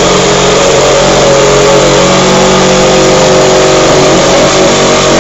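Reciprocating saw with an aggressive pruning blade cutting through the thick polyethylene wall of a 55-gallon plastic drum, its motor running at a steady, even speed with a loud buzz.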